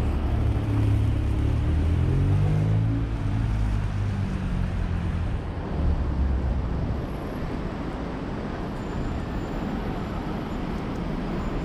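Road traffic on a busy city street: a vehicle's engine drones low close by for the first four seconds or so, then fades into a steady wash of passing traffic.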